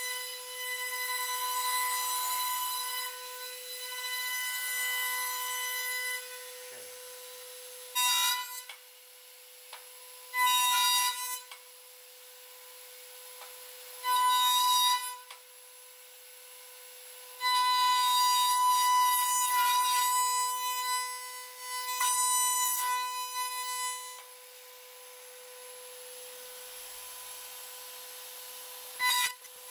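Router spindle of a dovetail-cutting machine running with a steady high whine, biting into a hardwood board in five loud cutting passes, the longest about three seconds, between quieter stretches where the spindle spins without cutting.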